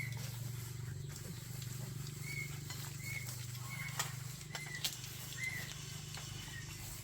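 A parrot giving a string of short, high chirps, about one every second, over a steady low hum, with a few sharp clicks.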